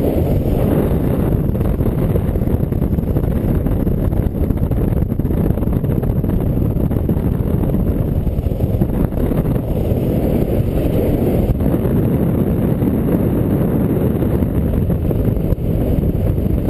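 Steady low rushing of airflow buffeting the camera's microphone during a paraglider flight, a dense rumble without any pitch.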